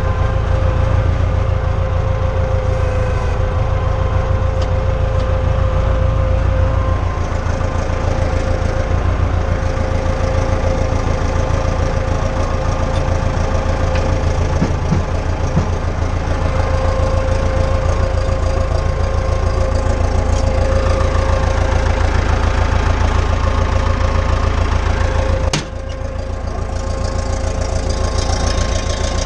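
Case 850B crawler dozer's diesel engine running steadily, heard from the operator's seat, with a deep pulsing note and a thin steady whine over it. About 25 seconds in there is a sharp click and the engine note suddenly drops, then builds back up.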